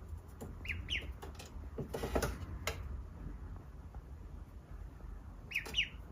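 Duckling peeping: two short high peeps about a second in and two more near the end, with scuffling and clicks in between.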